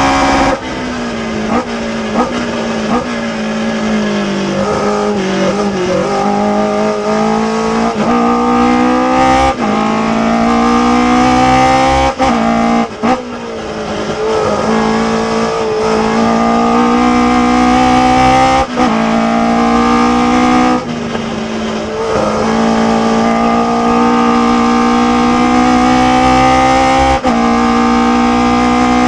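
Ginetta G16 sports racer's engine heard from the cockpit at racing speed: it cuts back sharply about half a second in, with quick rev blips on the downshifts, then pulls up through the revs with gear changes, lifting off and coming back on several times.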